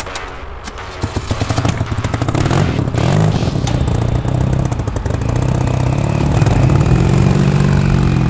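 Custom motorcycle's engine catching about a second in, then revved up and down a few times.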